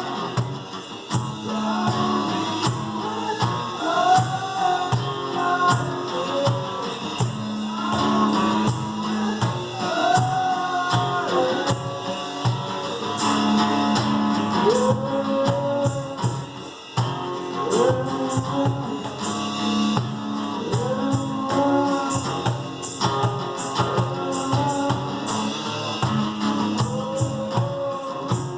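A live acoustic two-piece band playing: guitar and percussion struck on a steady beat, with a melody line that slides between notes over them.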